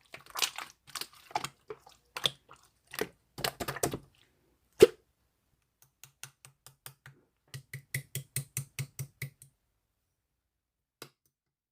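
Irregular clicking and tapping, like keys or a hard object being tapped, then one louder knock about five seconds in, followed by a quick, even run of light clicks at about five a second that stops after about three seconds, and one last faint click near the end.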